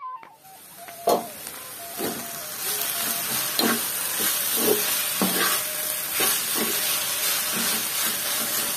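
Chopped amaranth greens sizzling in oil in an iron kadai while a steel spatula stirs them, scraping and tapping against the pan every second or so. A sharp clank about a second in.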